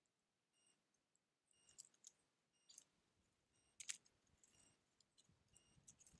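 Near silence, with faint scattered clicks and short high chirps; the sharpest click comes about four seconds in, and a faint low rustle follows near the end.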